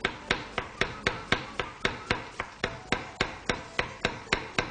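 Kitchen knife slicing a red onion into thin slices, the blade striking the cutting board in a steady rhythm of about four strokes a second.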